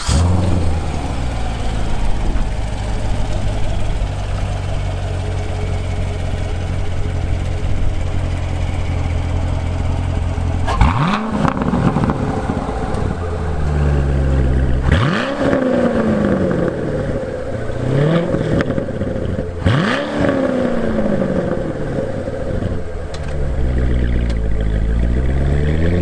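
2016 Chevrolet Corvette Stingray (C7) 6.2-litre V8 just after start-up, idling steadily through its stock quad exhaust, which has no active exhaust valves. After about ten seconds it is revved four times, each rev rising and then falling back to idle, with more uneven throttle work near the end.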